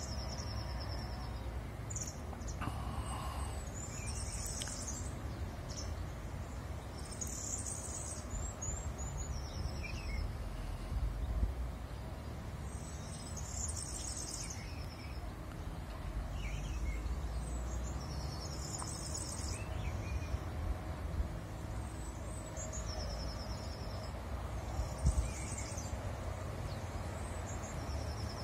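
A small songbird singing short, high trilled phrases over and over, every few seconds, over a steady low outdoor rumble.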